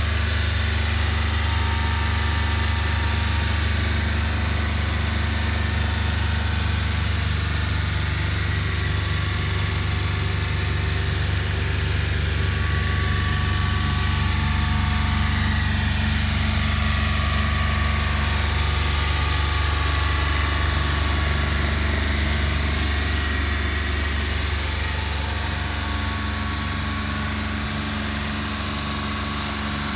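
Mitsubishi Minicab kei truck's engine idling, a steady low hum, slightly quieter in the last few seconds.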